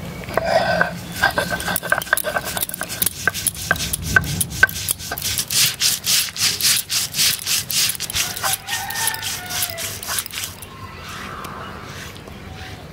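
Stone muller rubbed back and forth on a flat grinding stone, grinding soaked poppy seeds into paste: a quick, rhythmic rasping scrape, stroke after stroke. The strokes stop and it turns quieter near the end.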